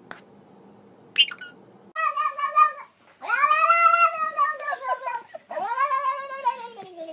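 A cat yowling: one short meow, then two long drawn-out yowls, each rising and then falling in pitch. A brief high squeak comes about a second in.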